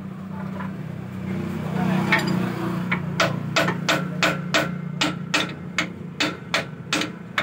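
Sharp metal-on-metal knocks, evenly spaced about three a second, starting about three seconds in: a hand tool striking parts under a tractor's engine. A steady low hum runs underneath.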